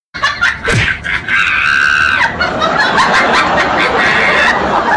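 Laughter sound effect added over the clip, a dense stretch of human laughing that starts just after a brief silence at the opening.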